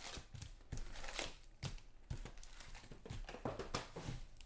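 Trading-card pack wrappers crinkling as packs are handled and opened, in short irregular rustles.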